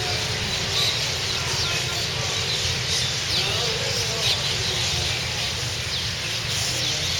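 A flock of small birds chirping, with many short, high, downward-sweeping chirps scattered throughout, over a steady low background rumble.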